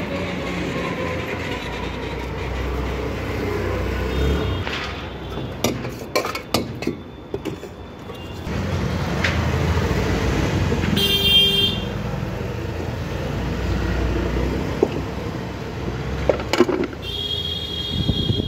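Street traffic: a steady rumble of passing vehicles, with a vehicle horn honking twice, about eleven seconds in and again near the end. A run of sharp clicks and clinks comes about five to seven seconds in.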